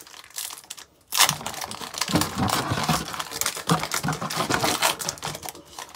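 A Pokémon booster pack's foil wrapper being torn open and crinkled by hand, starting about a second in: a dense run of rapid crackling and rustling.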